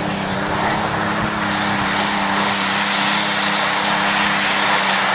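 Diesel pulling truck's engine running at full throttle under load, a loud, steady engine noise that holds one pitch throughout.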